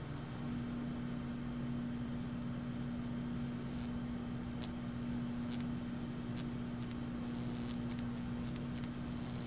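Microwave oven running with a metal energy-drink can inside: a steady hum, joined from about four seconds in by sharp snaps about once a second as the can starts to arc and spark.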